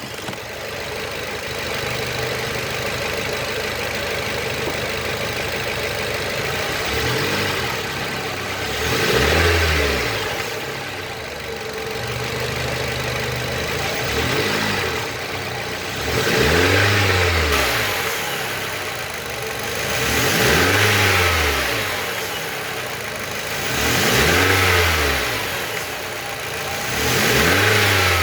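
Renault Fluence 2012 engine idling, then blipped about five times, each rev rising and falling back to idle. It is being revved to bring out a strange engine noise that the owner is trying to catch.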